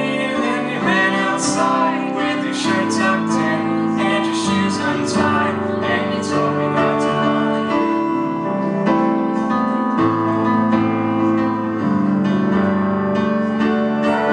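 Live band music, mainly piano, with singing and sharp percussive strikes through the first half.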